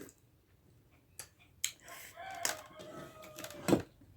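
Eating sounds: scattered sharp mouth clicks and smacks of someone chewing dhido, with a sharper click near the end as the loudest. A faint drawn-out call in the background, falling slightly in pitch, runs for about two seconds from the middle.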